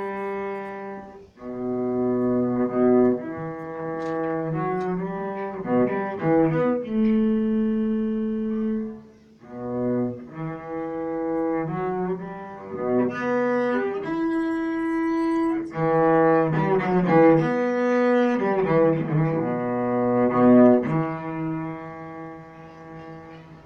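Solo cello playing a slow melody of long bowed notes, with short breaks between phrases, growing quieter near the end.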